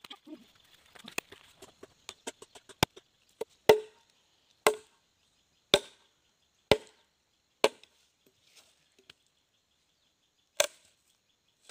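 Machete blade chopping into a green, freshly cut neem branch: a run of sharp chops about a second apart, then a pause of about three seconds before one last chop near the end.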